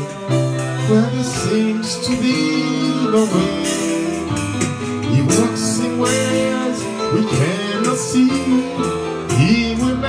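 Music: a song with a singing voice over guitar and other instruments, with a steady beat.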